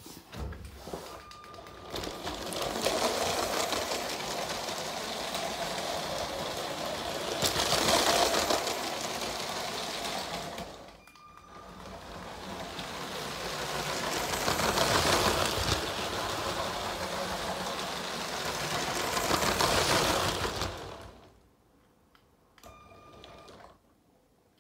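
Motorised LEGO train running on plastic LEGO track: a motor whirring and wheels clattering over the track joints. It swells and fades twice as the train comes close and moves away, and stops about three quarters of the way through.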